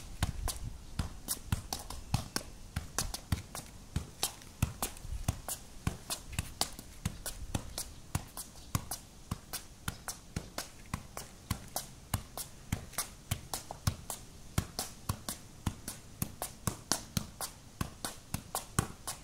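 A football being juggled on the feet, a steady run of short taps of ball on shoe, about three touches a second.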